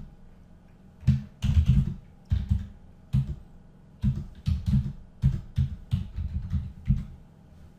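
Typing on a computer keyboard: runs of keystrokes with short pauses between them, starting about a second in.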